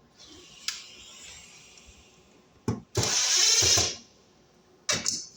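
Handling noise from fitting a spacer shim behind a wall outlet: a click, a knock, then a loud, rough scraping rasp lasting under a second, and two sharp clicks near the end.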